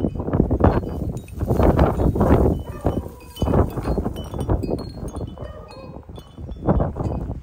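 Blizzard wind buffeting the microphone in uneven gusts, with scattered short, high ringing notes.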